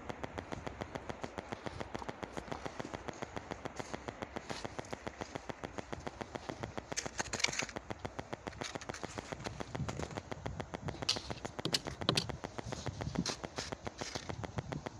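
Footsteps crunching in fresh snow, a few crisp crunches about halfway through and a cluster of them near the end, over a fast, even ticking.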